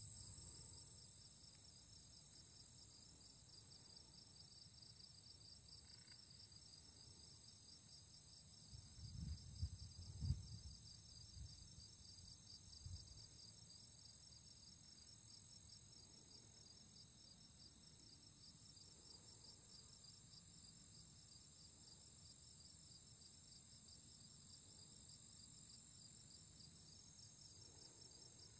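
Faint chorus of crickets and other field insects: one rapidly pulsing trill and a higher, steady buzz, both unbroken throughout. A few soft low thumps about nine to thirteen seconds in.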